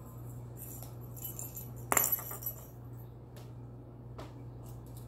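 A plastic ball toy is set down in a bowl about two seconds in, with a short jingling clatter, followed by a few lighter clicks over a steady low hum.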